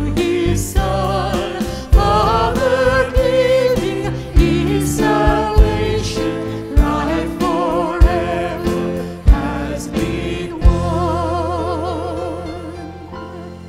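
A small group of singers with keyboard and bass guitar singing a worship hymn, with a few sharp beats. Near the end they hold a final chord, the voices wavering with vibrato, and it fades away.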